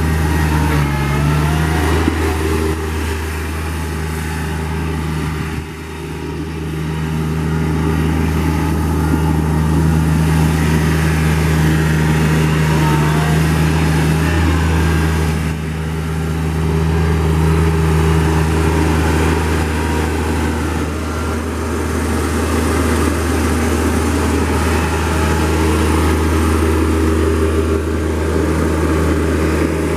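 Diesel engine of a Toro Reelmaster 5200-D reel mower running steadily while the mower is driven. It dips briefly in loudness twice, about six and fifteen seconds in.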